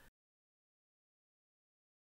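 Silence: the sound cuts to digital silence, with nothing audible.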